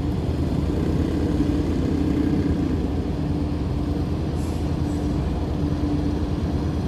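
Ship's engine and machinery running with a steady low rumble and a faint steady hum.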